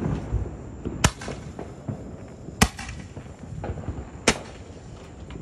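Hand-held Roman candle firing, three sharp pops about a second and a half apart as it shoots its shots into the sky.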